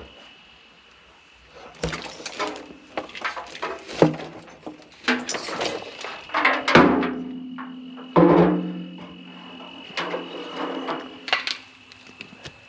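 Pieces of scrap metal clanking against each other as they are sorted and moved, about a dozen irregular knocks, several of them ringing on for a second or more.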